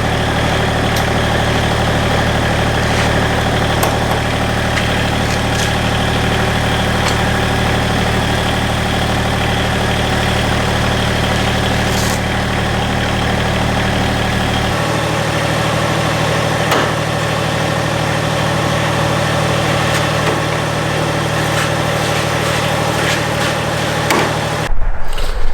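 An engine idling steadily. About fifteen seconds in, its deepest hum drops away while the rest of the note holds. A sudden louder, rougher noise cuts in just before the end.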